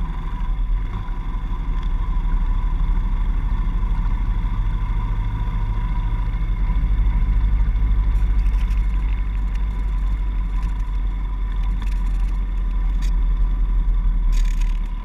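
Honda Dax 70cc's small air-cooled four-stroke single-cylinder engine running steadily as the bike cruises. It runs at an even, unchanging pace throughout.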